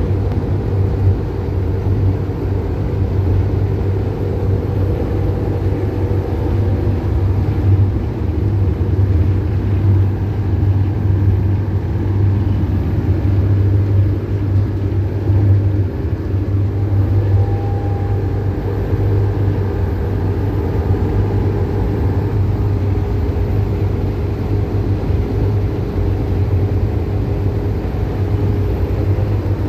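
Optare Solo single-deck bus heard from inside the passenger cabin while driving at steady road speed: a constant low engine and road drone with no change in pitch.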